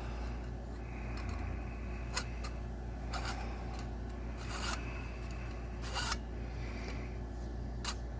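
Thin aluminium tubing being cut in a small hobby miter box: a handful of short, separate scraping cutting strokes over a low steady hum.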